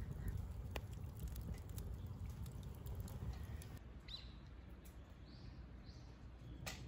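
A few short, high bird chirps in the second half, over a steady low rumble. Scattered sharp clicks sound in the first half.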